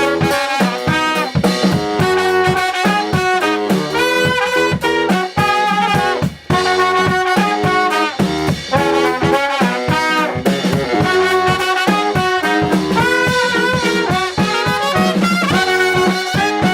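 Small brass band playing an up-tempo arrangement, horns sounding melody and harmony over a steady drum beat. The sound dips briefly for a moment about six and a half seconds in.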